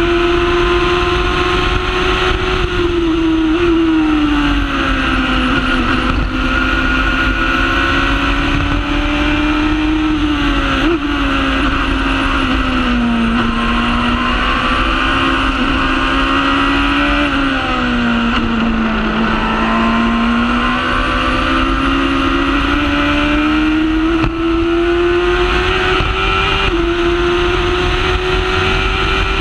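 Onboard sound of a Formula Predator's single-seater's Honda Hornet inline-four motorcycle engine running hard at high revs. Its pitch sags slowly several times and climbs back, with a few abrupt steps in pitch where the gear changes.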